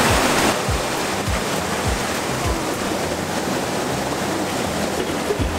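Rushing white water of a rocky stream cascade at a waterfall, a steady full hiss. Under it runs a low, even beat of background music, about one thump every 0.6 seconds.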